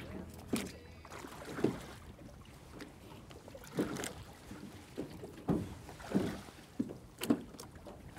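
Small metal boat being poled along through shallow water: irregular short splashes and knocks of the pole and water against the hull, roughly one a second, over low lapping water.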